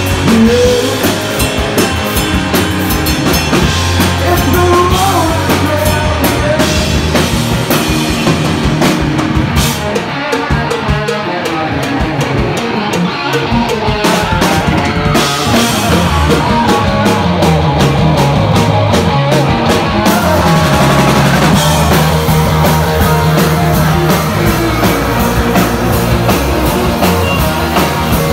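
Live rock band playing loud: electric guitars, electric bass and drum kit, with the high end dropping back for a few seconds in the middle.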